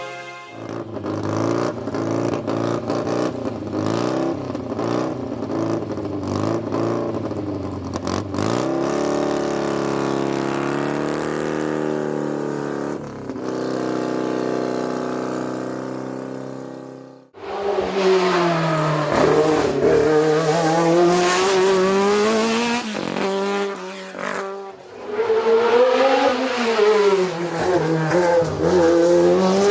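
Historic race car engines running and being revved. About 17 seconds in, a louder engine takes over, its pitch rising and falling again and again as a car is driven hard through the gears up the hillclimb.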